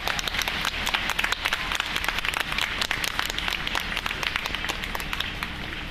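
A large audience applauding: dense clapping that thins out and fades near the end.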